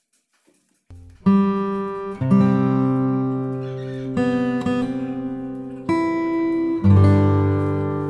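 Background acoustic guitar music, strummed chords ringing and changing about once a second, starting about a second in after near silence.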